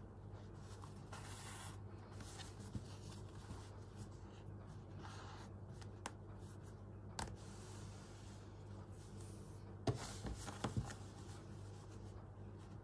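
Hand stitching: needle and thread drawn through fabric in soft swishes, with a few small clicks and taps from handling the work, the loudest about ten seconds in. A steady low hum sits underneath.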